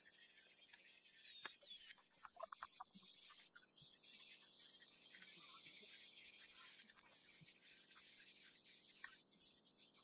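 Insect chirping in a steady, even rhythm of about three high-pitched chirps a second, clearer after the first few seconds. A few faint clicks and rustles come in the first three seconds.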